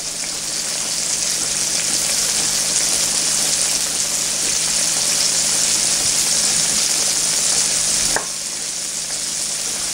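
Flour-dredged cube steak frying in hot grease in a cast-iron skillet: a steady sizzle that grows louder over the first few seconds as more pieces go in, then drops off sharply about eight seconds in.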